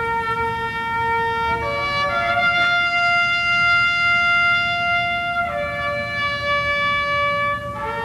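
Trumpet playing a slow solo call in long held notes, changing note a few times.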